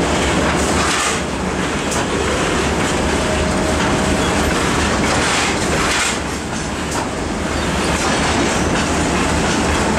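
2M62U two-section diesel locomotive moving slowly under power, its two-stroke diesel engines running with a steady low rumble, over the noise of wheels on rail as it backs onto a passenger train.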